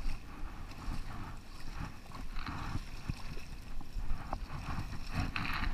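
Hooked coho salmon thrashing and splashing in shallow river water, with an angler wading through the water toward it. Irregular splashes, louder ones about halfway and near the end.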